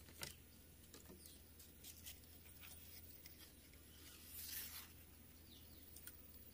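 Faint scraping and light clicks of a bolo knife working along coconut-leaf midribs, stripping them for a walis tingting broom, with one longer scrape about four and a half seconds in.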